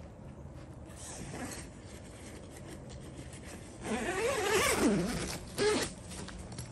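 Tent door zipper being pulled open: one long pull about four seconds in, then a short second pull.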